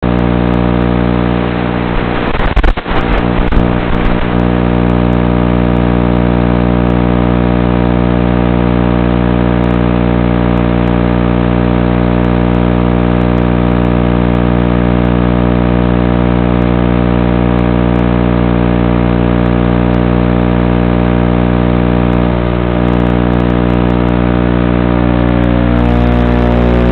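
Emax Hawk 5 FPV quadcopter buzzing steadily, one constant pitch with many even overtones, with a brief rougher patch about two to four seconds in.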